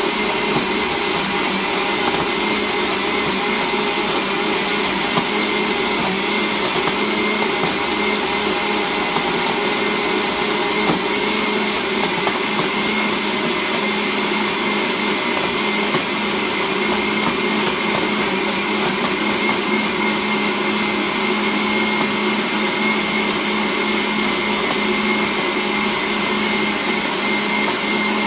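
Electric blender running steadily, grinding peanuts, raisins and flax seed for a smoothie: an even motor hum with a steady high whine.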